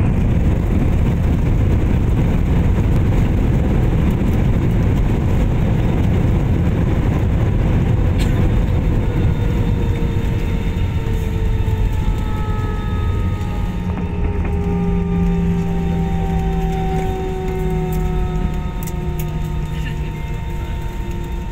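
Airliner's landing rollout heard from inside the cabin: a loud, steady rumble of the wheels and engines on the runway. Through the second half the engines' whine falls slowly in pitch as they spool down and the aircraft slows.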